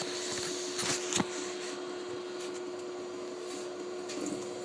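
Room tone with a steady hum, and a few brief clicks about a second in.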